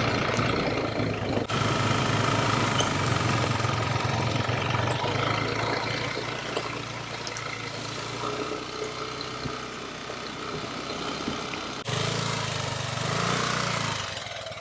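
Motorbike engine running on the move under a steady rushing noise. The sound breaks off abruptly twice, about a second and a half in and near twelve seconds.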